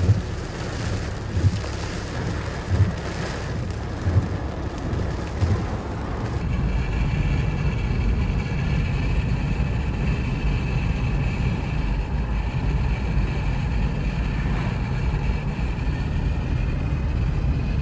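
Wind noise with a low thump about every second and a half, then, about six seconds in, an abrupt change to the steady low rumble of a car driving, with a faint steady whine above it.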